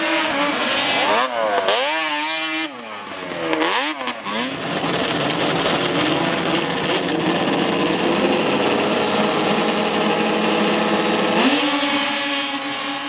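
Snowmobile engines revving: a few quick rises and falls in pitch in the first four seconds, then a long steady run at high revs, climbing again near the end.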